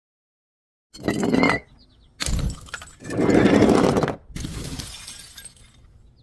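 Glass bottles smashing and shattering: several separate crashes, each starting and stopping abruptly, with the loudest a little past the middle.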